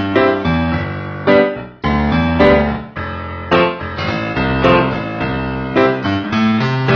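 Keyboard music with a piano sound: held notes and chords changing every second or so.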